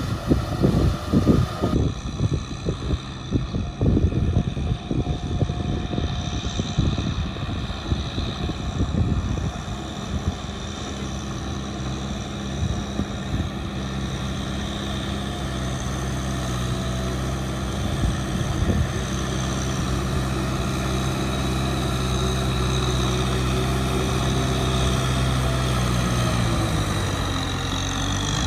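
Kubota M6040SU tractor's diesel engine running under load as it pulls a rotary tiller through flooded paddy mud. The sound is rough and uneven at first, then settles into a steady drone about ten seconds in, with the pitch dropping slightly near the end.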